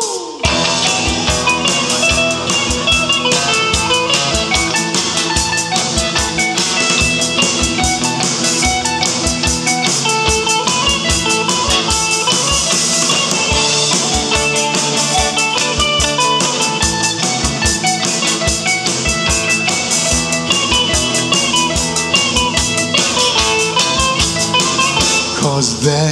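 Live band playing an instrumental break with no singing: guitar, three-string cigar box guitar and mandolin over a drum kit keeping a steady kick-drum beat. The band comes back in after a brief break right at the start.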